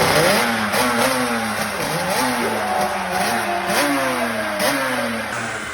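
Honda NSR500 two-stroke 500cc V4 Grand Prix motorcycle engine being blipped over and over, the revs rising and dropping a little more than once a second, freshly fired up after years in storage.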